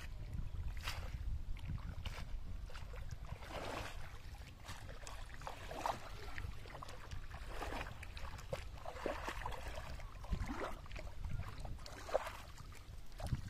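Water splashing and sloshing in irregular swishes as a person wades through shallow muddy pond water, over a steady low rumble of wind on the microphone.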